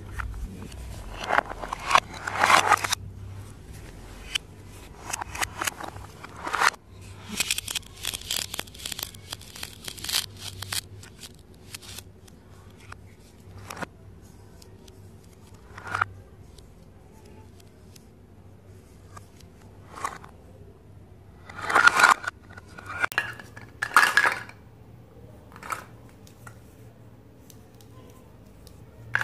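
Hard plastic toy fruit and vegetable pieces handled in the hands: scattered clicks, knocks and scraping of plastic on plastic. There are louder clusters near the start, a longer stretch of dense crackling about a third of the way in, and two more clusters about three-quarters through.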